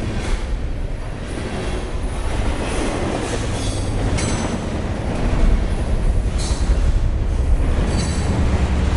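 A train rolling past with a steady, heavy rumble. Short high-pitched wheel squeals come about four seconds in, again about six and a half seconds in, and near the end.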